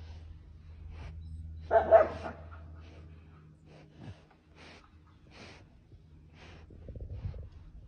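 A jaguar licking and rubbing its head on wooden boards, heard as soft short strokes about every half second over a steady low hum. About two seconds in there is one short, loud, bark-like animal call.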